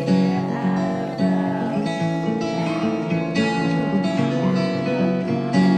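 Background music: acoustic guitar picked in an instrumental break of a folk song, with no singing.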